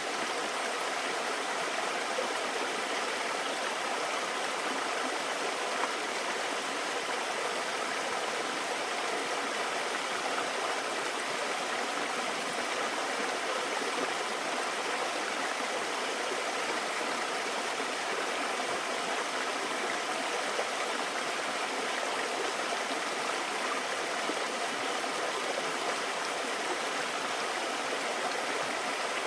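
Mountain stream water rushing and splashing over rocks in a steady, unbroken flow.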